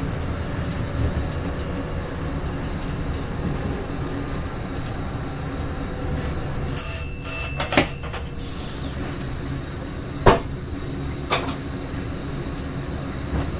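Electric passenger train running along the track, a steady rumble with a few sharp knocks; the loudest knock comes about ten seconds in.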